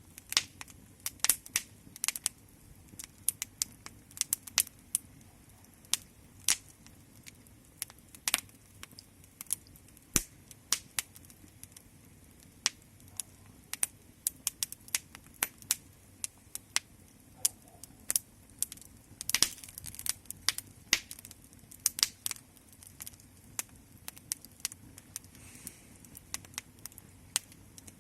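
Wood fire crackling: a steady low hiss with irregular sharp pops and snaps, several a second.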